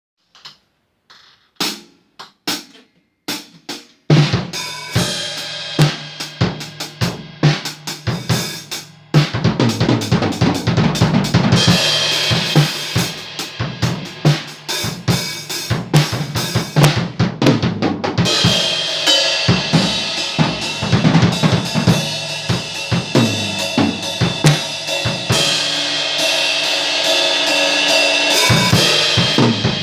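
Acoustic drum kit played by a drummer: a few separate strokes at first, then from about four seconds in a steady groove of bass drum, snare and cymbals that gets fuller about nine seconds in and more cymbal-heavy later.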